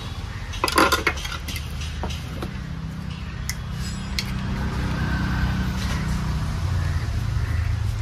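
Handling noise from car horn units and their wiring: a cluster of sharp clicks and clacks about a second in, then a few single clicks, over a steady low hum. The horns themselves are not sounding.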